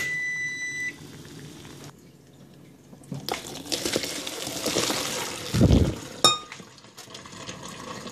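An electronic beep for about a second over water boiling in a pot. Then the pot of boiling water and fiddleheads is poured out into a colander: a gush of splashing water with a heavy slosh near the end, a metal clink about six seconds in, and water dribbling through the colander.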